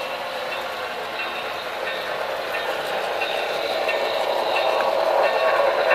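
Model trains running on the track: a steady rolling rattle of small wheels and motors, growing louder over the last few seconds as the cars come closer.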